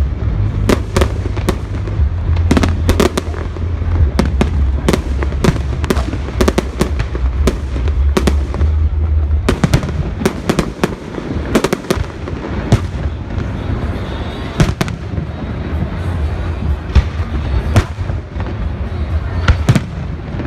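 Aerial fireworks going off in rapid succession: many sharp bangs and crackles, several a second, over a continuous low rumble.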